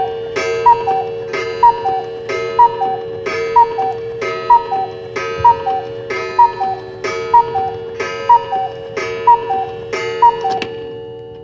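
Cuckoo clock striking twelve: a two-note falling "cuck-oo" call repeats about once a second, eleven times, over a ringing chime tone. After the last call, near the end, the ringing fades away.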